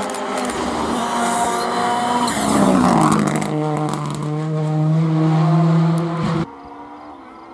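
Ford Fiesta rally car's engine passing close at speed, with a few sharp cracks as it arrives. Its pitch drops as it goes by, then holds on a steady note as it pulls away. The sound cuts off suddenly about six and a half seconds in, leaving a much quieter background.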